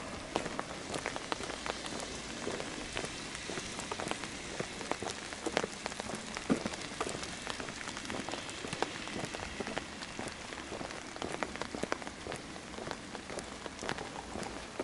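Rain falling, with many small irregular drop ticks over a steady hiss.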